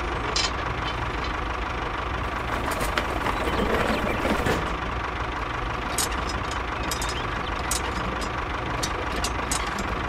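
Steady engine idling with a low rumble and a faint thin whine. From about six seconds in, a run of small sharp clicks as a pin is pushed into the toy tractor's hitch.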